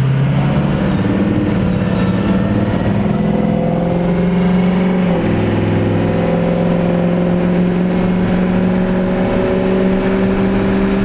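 Vehicle engine running steadily on the road. Its pitch steps slightly down about five seconds in.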